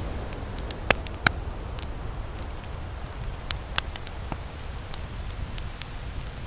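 Campfire crackling: scattered sharp pops and snaps, the two loudest about a second in, over a steady low rush.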